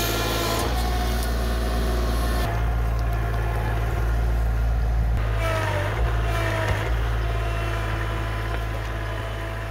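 Kubota L3901 compact tractor's three-cylinder diesel engine running steadily under load while the front loader and stump bucket dig out tree stumps and roots.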